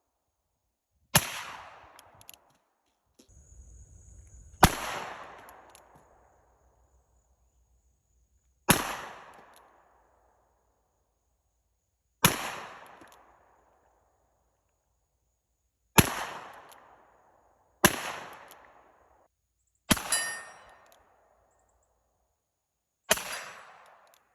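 Cimarron 1873 Single Action Cattleman revolver firing .38 Special rounds: eight single shots spaced two to four seconds apart, each trailing off in a short echo.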